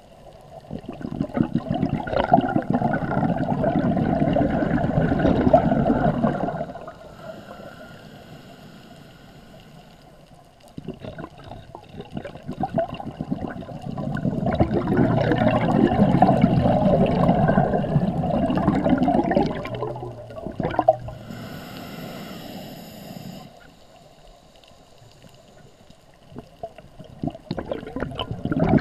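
Scuba breathing through a regulator underwater: two long exhalations of gurgling bubbles, each followed by a quieter hissing inhalation, with a third exhalation starting near the end.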